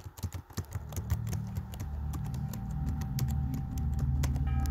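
Quick, irregular computer-keyboard typing clicks, over a low steady drone that swells in after about a second.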